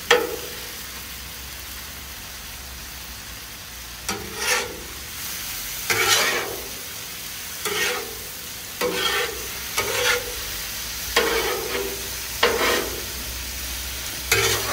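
Calf liver and onions in hot sauce sizzling on a Blackstone steel flat-top griddle. From about four seconds in, a metal spatula scrapes and turns the food against the griddle plate every second or two.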